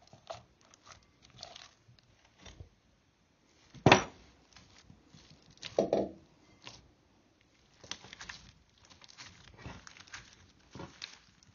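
Hands kneading, squeezing and stretching green slime mixed with small orange beads, giving a string of short sticky clicks and pops. There is a loud snap about four seconds in and another loud pop about six seconds in.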